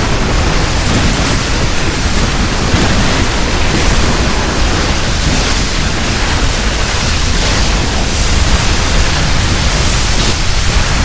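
Loud, steady rushing noise with a deep low rumble, a sound effect that starts abruptly and holds without change.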